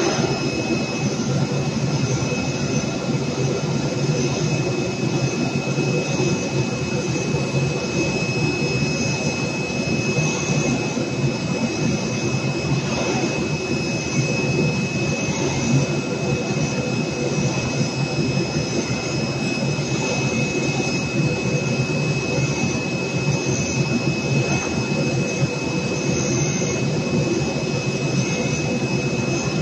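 CNC sofa-fabric cutting machine running: a steady, unbroken machine noise with a thin, steady high whine on top.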